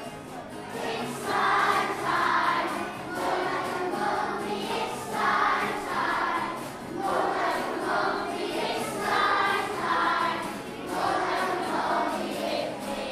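Group of school children singing a song together in a minor key, in phrases of about a second each, over a musical accompaniment.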